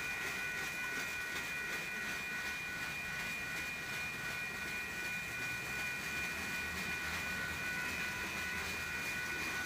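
Kansas City Southern freight train cars rolling steadily past a grade crossing: a continuous low rumble with a steady high-pitched whine over it.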